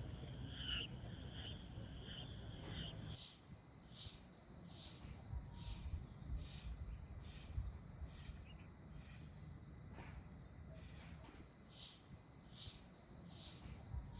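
Crickets chirping in a steady, even rhythm, roughly one and a half chirps a second, over a continuous high-pitched insect trill that comes in about three seconds in. Faint, with soft low rumbles underneath.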